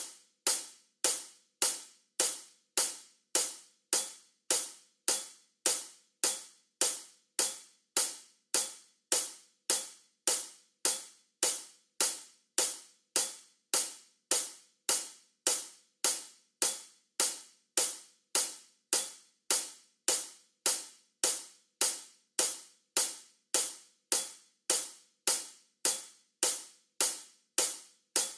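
Hi-hat sample used as a metronome click, one hit per beat at 104 beats per minute, about 1.7 hits a second, perfectly even. Each hit is short and bright and dies away before the next.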